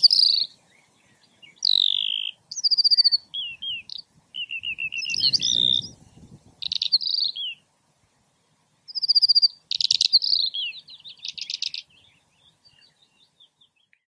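A pipit singing: a string of varied high phrases, with falling sweeps, buzzy repeated notes and fast trilled runs, separated by short pauses and ending about twelve seconds in.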